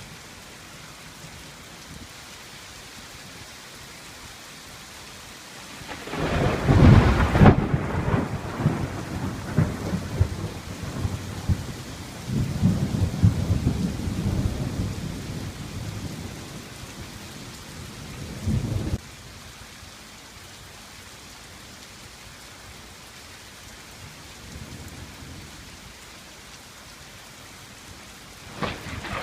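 Steady rain with thunder: about six seconds in, a close thunderclap cracks and rolls into long rumbling that cuts off suddenly some twelve seconds later. Another roll of thunder begins near the end.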